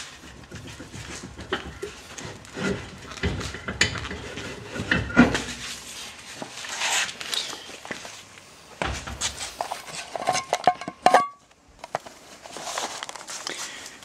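Rusted-on rear brake drum of a 1974 VW Super Beetle being worked loose by wriggling the bolted-on wheel by hand: irregular metallic clunks and scrapes as the drum rocks on the axle, with a short metallic ring near the end.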